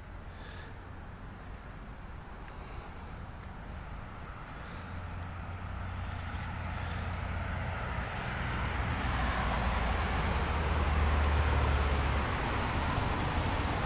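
A motor vehicle going by: a low rumble and noise that build steadily over several seconds, loudest a couple of seconds before the end, over faint steady crickets.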